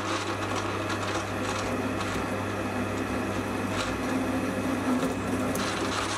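Mini lathe running at about 300 RPM with a trepanning tool cutting a ring groove into the face of an aluminium block: a steady motor hum under the hiss and scrape of the cut. The tool, not ground deep enough, is rubbing on the inner wall of the groove.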